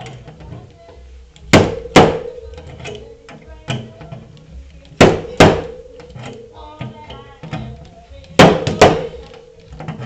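Slide hammer yanking on pins welded to a dented car body panel: sharp metallic knocks in three pairs, each knock followed by a short ring from the panel.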